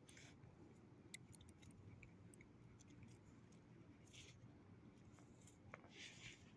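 Near silence: a faint steady low hum with a few tiny clicks, and two brief soft rustles, one about four seconds in and one near the end.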